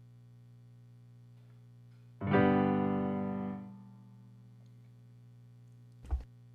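A single piano chord struck about two seconds in, held for over a second and then released, over a steady low electrical hum. A short knock comes near the end.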